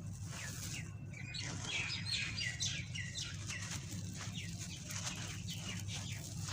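Small birds chirping: a quick run of short, falling chirps, busiest about two seconds in, over a steady low hum.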